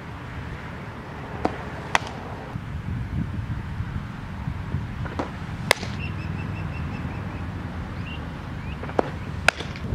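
Three softball fastball pitches: each time a lighter click, then about half a second later the sharp pop of the ball smacking into the catcher's leather mitt. Wind rumbles on the microphone throughout.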